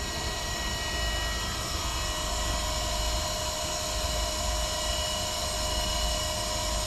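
LNG dispenser filling a truck's tank: liquefied natural gas flowing under pump pressure through the insulated filling hose, a steady rushing noise with a faint even whine and a low rumble. The fill is in progress and near its end at about 300 kg.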